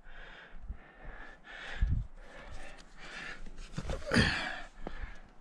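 A climber's heavy breathing while scrambling up a rock face, with breaths about once a second. There is a dull low thump about two seconds in and a louder, sharp gasping breath about four seconds in.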